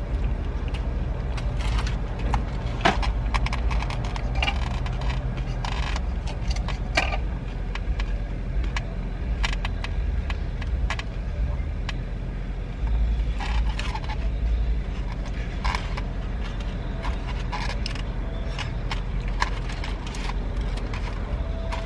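Close-up eating sounds: chewing and mouth clicks, with short scrapes and taps as food is picked out of a styrofoam takeout container, over a steady low rumble.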